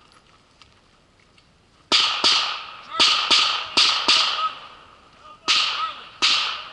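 Handgun shots, eight in all, mostly in quick pairs about a third of a second apart, each one ringing out as it dies away.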